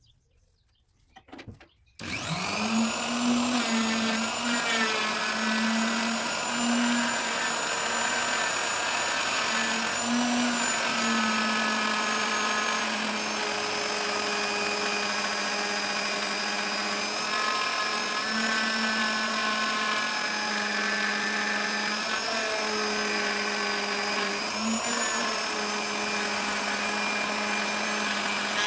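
Electric wood router starting up about two seconds in, then running steadily with a whine as it cuts into teak. Its pitch dips briefly now and then as the bit takes load.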